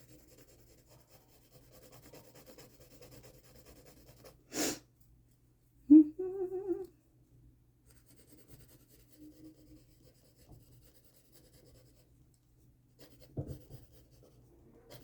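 Graphite pencil scratching faintly on drawing paper, with a short breath about four and a half seconds in. About six seconds in comes a sharp tap, then a brief hummed note lasting about a second.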